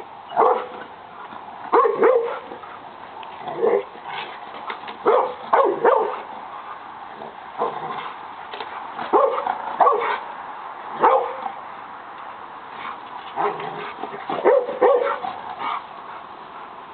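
A dog barking repeatedly in short, loud barks, some single and some in quick pairs or triples, with brief gaps between.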